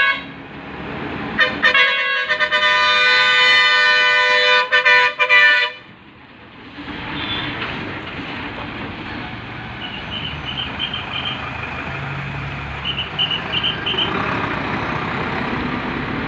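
A vehicle horn, most likely the KSRTC bus's, held in a long blast for about four seconds with a couple of short breaks near its end as the bus takes the hairpin bend. Then the bus's engine and tyres run close by, with two short runs of high pips later on.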